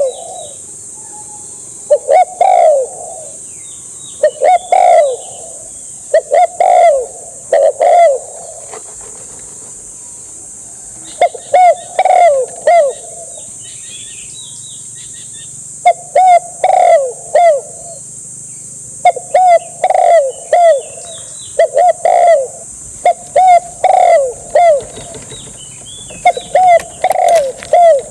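Spotted dove cooing: loud phrases of two or three short notes, repeated about every two seconds with a couple of longer pauses. A steady high hiss runs underneath.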